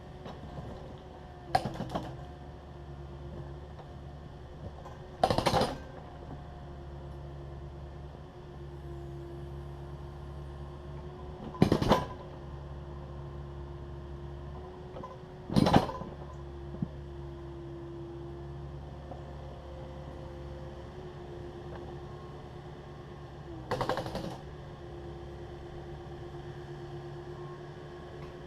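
Takeuchi TB260 excavator's diesel engine running steadily with a held hydraulic whine, while its bucket clanks against broken concrete five times, several seconds apart.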